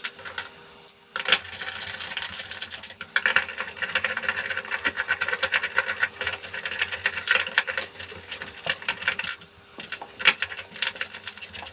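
Hand screwdriver tightening screws into a metal fitting, with fast, even metallic clicking that stops briefly near the end and then starts again.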